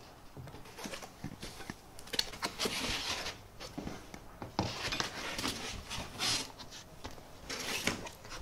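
Packing material being handled in a box: a run of rustling and scraping bursts with a few light knocks.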